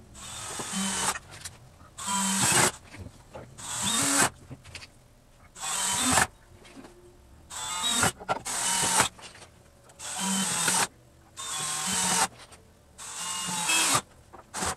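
Power drill driving screws into wooden framing: about eight short runs of the motor, each about a second long, getting louder and then stopping abruptly, with short pauses between.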